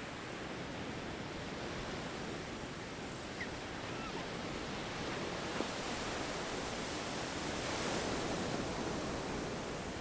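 Ocean surf on a sandy beach: a steady rush of breaking and washing waves that swells to its loudest about eight seconds in, with one faint click just past halfway.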